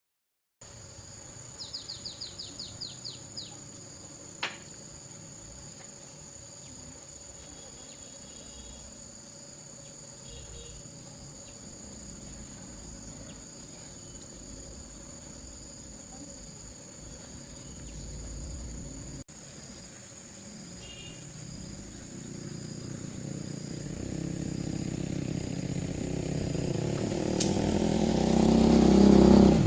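Steady high-pitched insect drone with a quick run of chirps about two seconds in and a few faint chirps later. Over the last several seconds a motor engine grows steadily louder.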